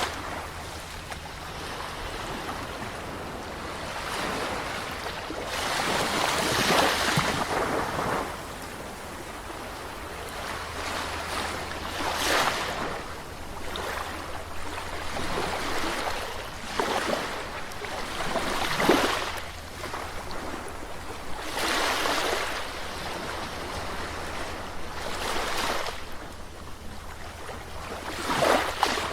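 Sea waves breaking and washing up on a shore, a fresh surge of surf every few seconds, over a steady low rumble.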